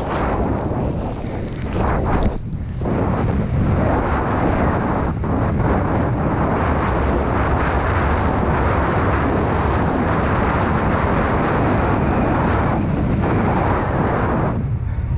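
Wind buffeting a helmet-mounted action camera's microphone while a snowboard rides fast through deep powder: a steady loud rushing noise, heaviest in the low end, that dips briefly about two seconds in and eases near the end.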